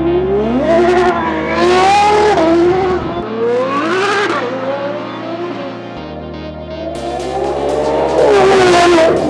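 Ferrari F12 TDF's naturally aspirated V12, fitted with a custom titanium X-pipe exhaust, revving hard three times as the car accelerates, its pitch climbing and then dropping each time. Background music with a steady bass line plays under it.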